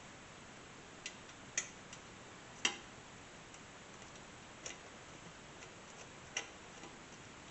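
Half a dozen sharp clicks and light taps, unevenly spaced, from hands working a metal cage loose inside a desktop PC case.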